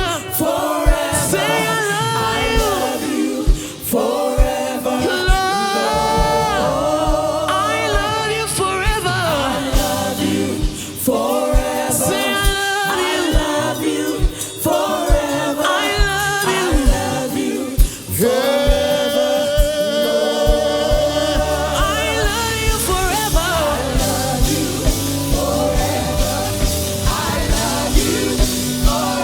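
Gospel music performed live: a singer and choir sing over a band with drums and bass, keeping a steady beat.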